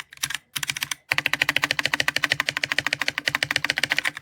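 Rapid typing on a mechanical keyboard: a few short runs of key clicks, then from about a second in a fast, unbroken run of keystrokes.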